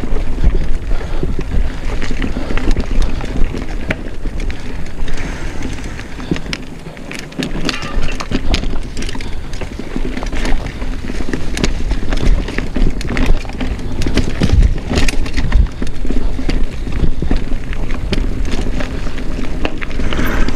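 Mountain bike rolling over rocky, rooty trail: dense clatter of tires and bike parts hitting rock, with many sharp knocks and rattles over a constant low rumble. It eases off briefly about seven seconds in.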